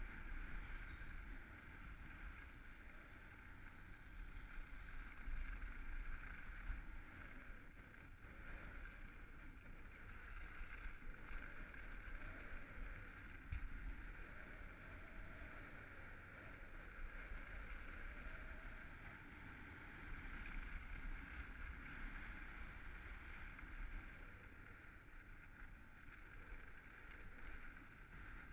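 Steady rushing and rumble of skis gliding over a groomed snow run, mixed with wind across the camera's microphone.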